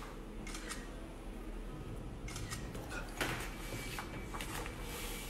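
Quiet room tone with a low hum and scattered soft clicks and rustles of handling, the sharpest a little over three seconds in.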